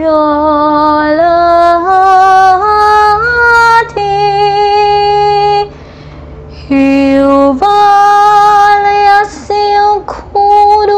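A woman singing in tongues, holding long notes on unintelligible syllables that climb step by step in pitch, with a pause of about a second halfway through and short breaks near the end.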